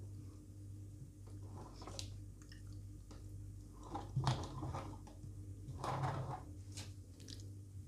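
A few soft scrapes and knocks from handling a cake turntable and spatula, over a steady low hum.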